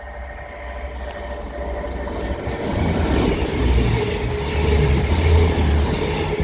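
A train passing close by: the low rumble of its wheels and engine builds up over the first few seconds, peaks, and starts to fade near the end.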